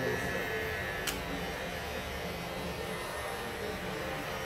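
Electric hair clippers running steadily against the hair near the ear, with a single sharp click about a second in.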